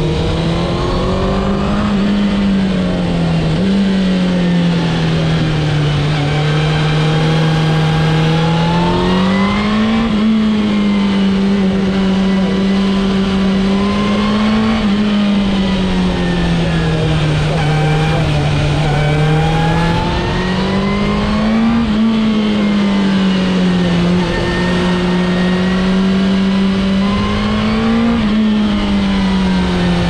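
2002 Suzuki GSX-R1000's inline-four engine running under load while riding, its note climbing as the throttle opens and easing off into corners, again and again. Several times the pitch drops suddenly at an upshift. A steady rush of wind and road noise runs under it.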